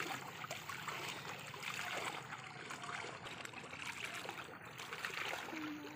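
Water trickling and lapping around a small boat on calm water, with many small splashes. A faint steady hum comes in near the end.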